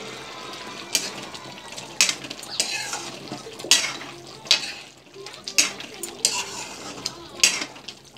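Metal spatula stirring a thin curry gravy in a metal kadai: irregular clanks of the spatula against the pan, about one a second, over wet stirring of the liquid.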